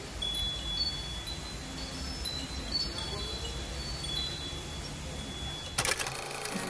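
High, clear chiming tones, struck one or two at a time and held briefly, over a low steady rumble. Near the end, a short burst of sharp clicks.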